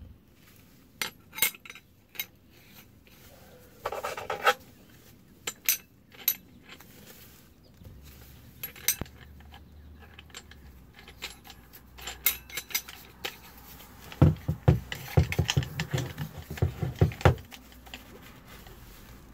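Metal clinks, clicks and rattles of an angle grinder's discs, washer and spindle nut being handled as one wheel is taken off and another fitted, with a busier run of knocks and rattles about two-thirds of the way through.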